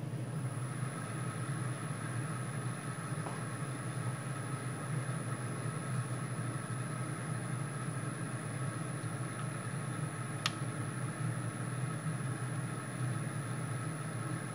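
VFD-driven CNC router spindle running steadily at low speed, about 1,400 rpm against 500 rpm requested: a low hum with a thin high-pitched whine above it. A single sharp click about ten seconds in.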